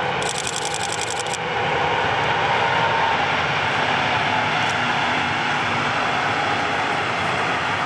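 A train passing close by: a steady, loud rush of wheels on rail with a faint hum, swelling in the first second and a half, when a quick run of high clicks rattles by.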